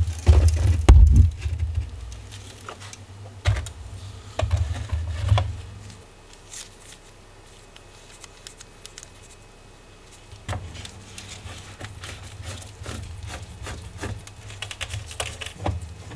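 Close-up workshop handling sounds from a vintage wall clock and tools: knocks and bumps of the clock case being handled, a quiet stretch, then a run of small metallic clicks and scrapes as a screwdriver works on screws in the clock movement.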